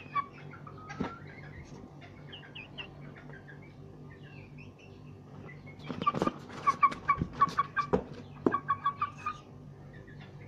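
A chicken clucking in a fast run of short, loud notes, about four a second, starting about six seconds in and stopping a few seconds later. Faint high chirps of small birds sound in the background, and there are a couple of soft knocks near the start.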